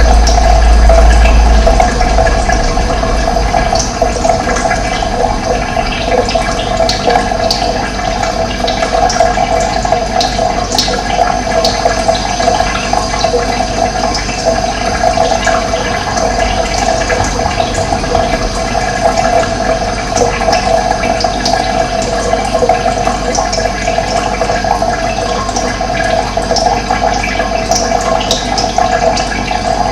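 Steady rush of running water, with brief high bird chirps scattered over it.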